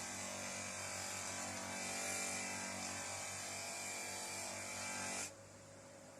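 Electric bench-mounted wheel running, with a steel spanner pressed against the spinning wheel and giving a steady rubbing hiss over the motor's hum. About five seconds in the rubbing stops suddenly, and only the quieter motor hum remains.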